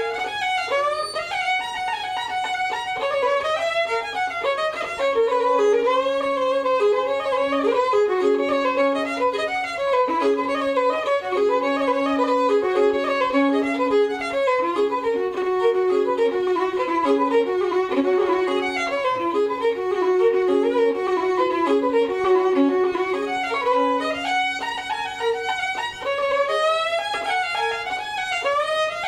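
A fiddle playing a lively Irish traditional tune: quick running notes in the melody over a held lower note through the middle of the passage.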